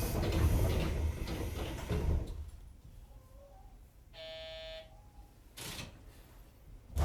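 Train doors of a JR West 205-series commuter train closing: a rush of air and rumble ending in a thud about two seconds in. About four seconds in, a short buzzer sounds for under a second, followed by a brief hiss and a sharp knock at the end.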